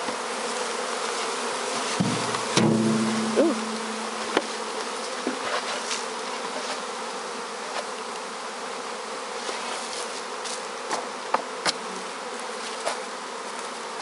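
Honeybees buzzing around an opened hive in a steady hum, with a few sharp knocks as the wooden hive boxes are handled.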